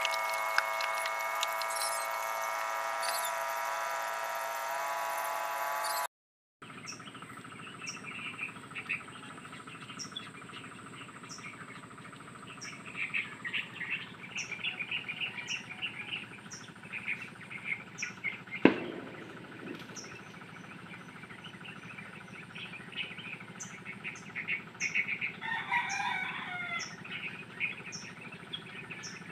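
Rural outdoor ambience of repeated chirping and a regular high tick, a single sharp click about two-thirds through, and a rooster crowing once near the end. Before this, the first six seconds hold a steady many-toned sound that cuts off abruptly.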